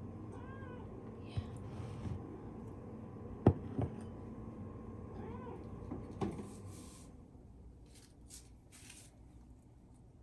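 Domestic cat meowing for its breakfast: two short meows that rise and fall in pitch, one about half a second in and one about five seconds in. A couple of sharp knocks fall between them.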